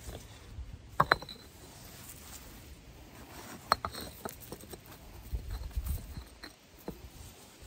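Fire bricks being set in place by hand and knocking against one another: a sharp pair of clinks about a second in, another few near the middle, and lighter taps later, with soft scraping of brick on the gravel and dirt between.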